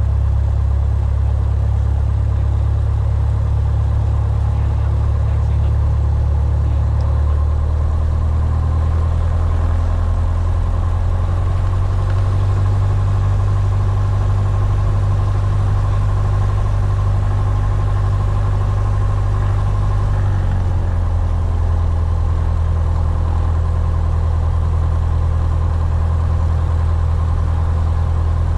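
Piper Warrior's four-cylinder Lycoming engine and propeller running, heard as a steady low drone inside the cabin. The drone shifts pitch slightly about a third of the way in and again about two-thirds in.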